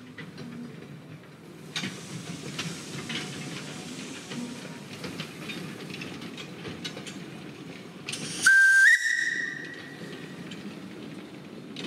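Narrow-gauge steam locomotive running with its train, a steady low rumble with scattered clicks. A little past halfway it gives one short whistle blast that steps up in pitch partway through and trails off over about a second.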